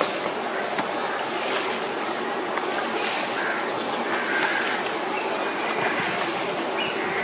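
Steady rushing background noise with a few faint clicks.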